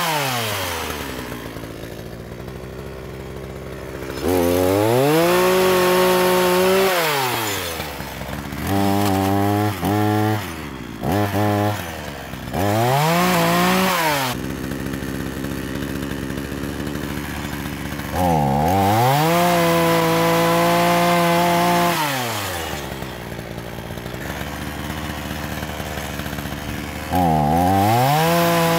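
Chainsaw revved in repeated short bursts. Each time the motor's pitch rises quickly to full speed, holds for one to four seconds and then winds down, with the saw cutting through thin branches lying on the ground.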